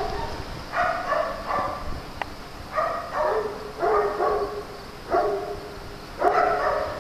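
Dog barking repeatedly, a bark or two about every second, with short gaps between.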